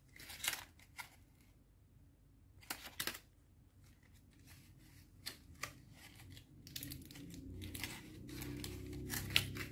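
Clear plastic packaging crinkling and crackling in the hands, a few scattered crackles at first, then more frequent ones over the last few seconds.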